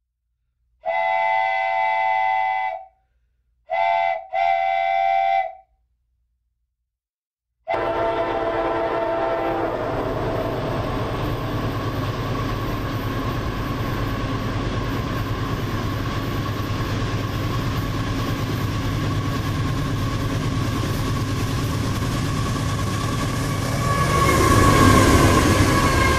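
Diesel locomotive horn sounding three blasts: one long, then a short one and a longer one. Then a CSX freight train runs by with a steady rumble of locomotives and rail cars on the track, growing louder near the end as the hopper cars roll past.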